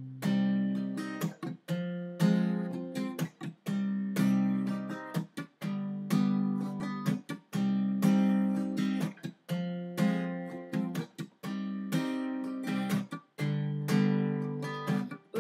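Acoustic guitar strummed in a steady rhythmic pattern of chords, each strum ringing and then cut short before the next: an instrumental intro with no voice yet.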